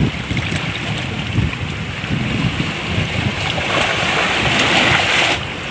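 Wind buffeting the microphone over shallow seawater lapping against rocks, with a louder rush of splashing water from about four seconds in that cuts off suddenly.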